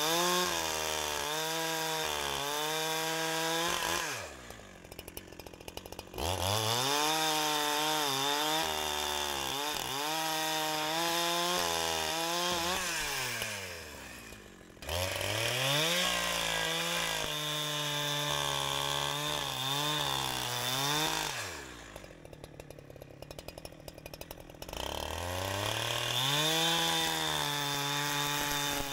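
Holzfforma G372XP two-stroke chainsaw with a 28-inch bar cutting through a dry dead log. It runs at full throttle in four long bursts, and the revs waver under load, dropping back to idle briefly three times between bursts.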